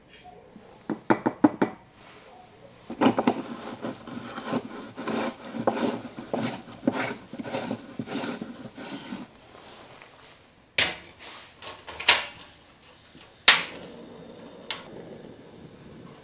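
Aluminium moka pot being made ready: a few quick taps as ground coffee is knocked into the filter basket, then a long run of short grating scrapes as the upper chamber is screwed onto the base. Three sharp metal knocks follow as it goes onto a gas stove, then the burner's steady faint hiss.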